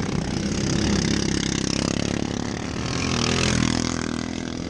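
Racing ride-on lawn mower engines running hard around the track, their pitch shifting as they rev, with a swell in loudness about three and a half seconds in as one passes close.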